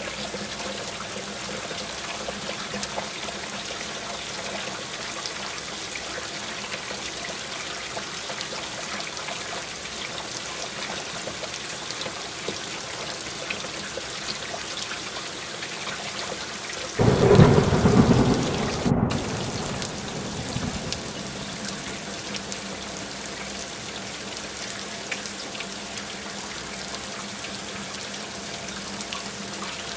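Steady rain falling, with a sudden clap of thunder about halfway through that rumbles loudly and fades away over about four seconds.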